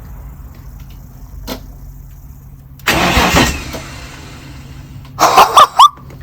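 Holden VL Commodore's RB30 straight-six turning over on the starter motor after sitting for 20 years, cranking without catching. There is a loud burst of cranking about three seconds in, and excited shouting near the end.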